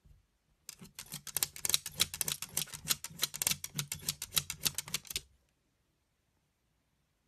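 Rapid run of sharp clicks from a long-haired dachshund at a window screen as it fixes on an insect, about seven clicks a second for some four seconds over a low steady drone, then stopping abruptly.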